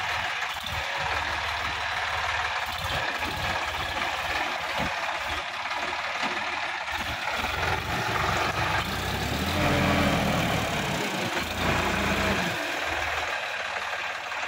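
Sonalika tractor's diesel engine running as it churns through deep mud, a low pulsing chug. About eight seconds in it revs up and grows louder for a few seconds, then settles back.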